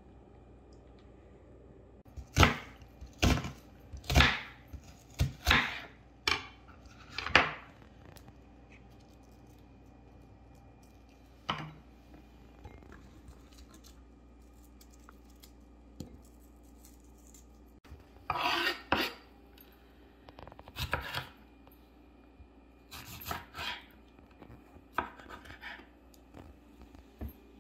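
Kitchen knife cutting vegetables on a wooden cutting board: a run of sharp cuts in the first several seconds, then scattered small groups of cuts with pauses between.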